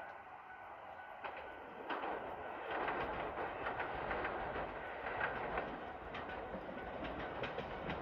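Diesel train approaching on the Nemuro Main Line, growing louder over the first three seconds and then running steadily, its wheels clicking over rail joints.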